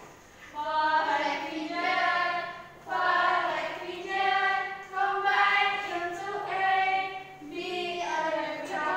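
A group of women singing a song together in unison, in phrases of a second or two with short breaks between them.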